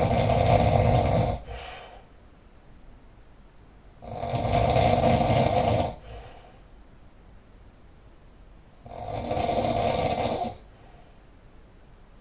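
Very loud snoring in a steady rhythm. One snore ends about a second in, then two more follow roughly every four and a half seconds. Each lasts under two seconds and is followed by a short, faint breath out.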